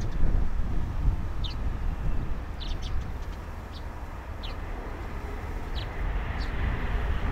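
Small birds chirping in short downward-sliding notes over a low wind rumble on the microphone. Near the end the hiss of a landing Airbus A330's jet engines starts to grow louder.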